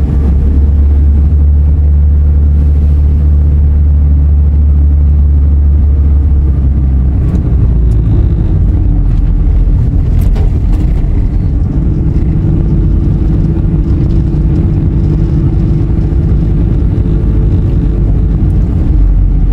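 A car driving on the road: a steady, loud drone of engine and road noise, as heard from inside a moving car. The engine's note shifts about seven seconds in and again about twelve seconds in.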